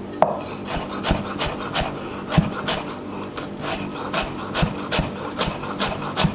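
Chef's knife chopping carrot sticks into fine dice on a wooden chopping board: a steady run of blade strikes, about three a second.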